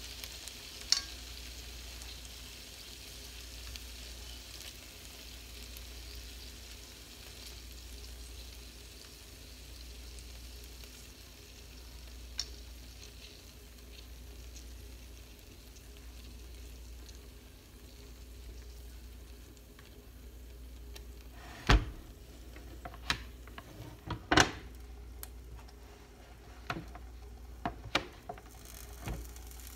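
Skewered chicken barbecue sizzling on a hot electric contact grill, with a handful of sharp knocks and clicks in the last third as skewers are lifted off the ridged grill plates and the grill lid is taken hold of to close it.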